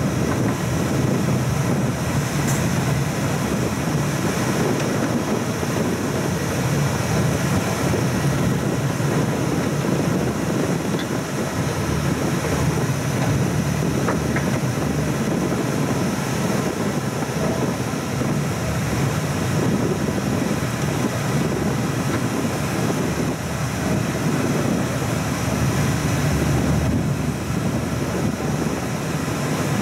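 South Shore Line electric commuter train running at speed, heard from the front of the train: a steady low rumble of wheels on rail, with no rail-joint clicks.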